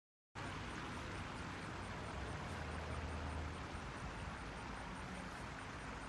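Steady outdoor background noise with a low rumble of distant road traffic, cutting in abruptly just after the start.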